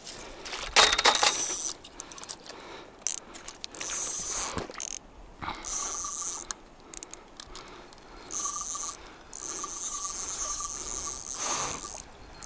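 Spinning reel being cranked in several bursts against a hooked fish, its gears whirring with a faint steady tone, while the rod is bent under the fish's pull. A loud sudden noise comes about a second in.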